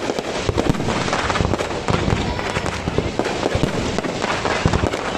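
Fireworks display: a dense, steady crackle of many overlapping bangs and pops, with no pause.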